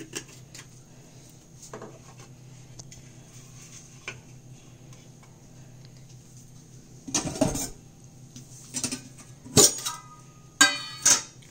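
Stainless-steel dishes being handled and set down on a kitchen counter: small clicks, a clatter about seven seconds in, then a sharp knock and a ringing steel clink near the end, over a low steady hum.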